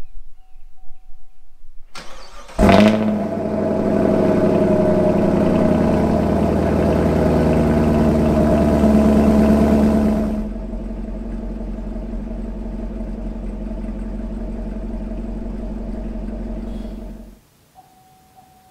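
Chevrolet Camaro SS's 6.2-litre V8 with long-tube headers starting up through its exhaust. It fires with a sharp flare and runs at a loud fast idle, drops to a lower, steadier idle about ten seconds in, and is switched off near the end.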